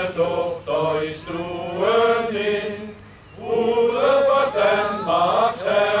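Men's choir singing without accompaniment, several voices together on held notes, with a brief break for breath about three seconds in.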